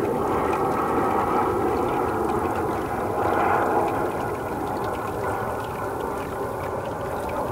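River water flowing, a steady rushing noise that swells slightly about three seconds in.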